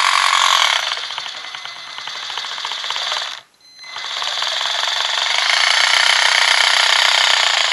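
WLtoys A959 RC car's electric motor and drivetrain making a loud, high, rasping buzz. It eases off for a couple of seconds, cuts out briefly about three and a half seconds in, then comes back steady. The noise is a fault on a new car that the owner cannot place but calls not right.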